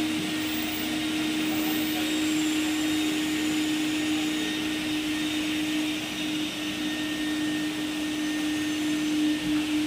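Carpet-cleaning vacuum motors running steadily: a constant hum with a rushing hiss of suction as water is drawn up out of the carpet into the machine's tank.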